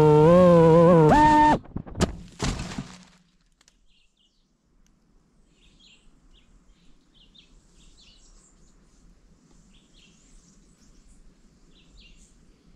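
A racing drone's motors whine with a wavering pitch, jump higher and cut off suddenly. Two knocks follow as the drone crashes into branches and leaves. Then faint bird chirps over near quiet.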